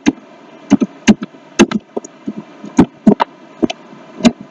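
Irregular clicks of computer keys and mouse buttons being pressed, about fifteen short sharp clicks spaced unevenly.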